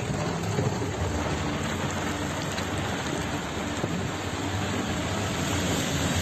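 Steady rain falling on a moving car, heard from inside the cabin, over a low rumble of engine and tyre noise.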